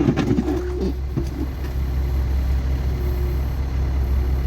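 Excavator engine running steadily under load, with a few knocks and scraping in the first second or so as the bucket works against rocky ground.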